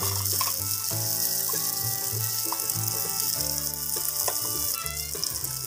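Background music with a bass line and a simple melody, over a steady sizzle of egg and batter frying in oil in the wells of a multi-hole electric pan: Thai crispy mussel pancakes (hoi tod) cooking.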